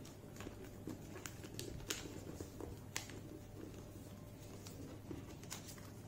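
Faint, scattered crackles and taps of origami paper being pressed and creased by hand against a tabletop, over a steady low hum.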